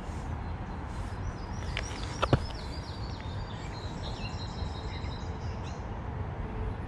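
Small birds chirping over a steady low outdoor rumble, with two sharp clicks a little after two seconds in.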